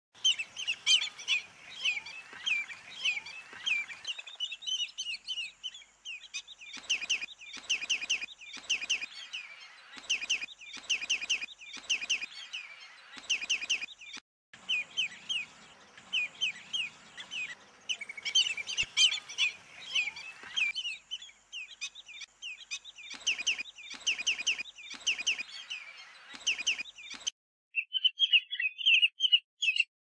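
Common redshank calling: runs of short, quick piping notes, several a second, repeated in bursts with short gaps between them.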